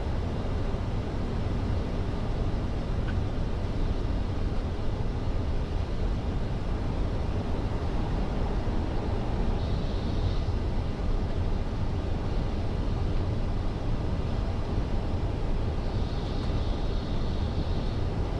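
Steady flight-deck noise of a Boeing 747-400 freighter in descent: an even rushing hiss with a heavy low rumble underneath, unchanging throughout.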